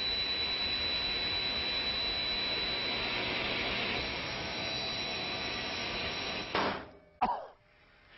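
Table saw with a skin-sensing blade brake running at full speed, a steady high whine over the motor. About six and a half seconds in, the sound cuts off abruptly as the brake fires on touching the hot dog, stopping the blade instantly and dropping it below the table.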